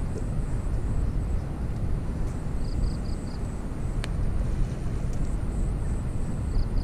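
Wind buffeting the microphone: a steady low rumble. About three seconds in, a short high call of four quick notes, and a sharp click about a second later.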